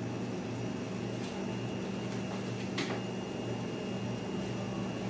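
Steady low electrical hum from a kitchen appliance over a constant hiss, with a single sharp click a little under three seconds in.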